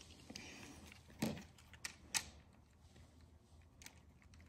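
Plastic Beyblade tops being fitted onto their launchers: a few short clicks and taps, the sharpest about a second and about two seconds in.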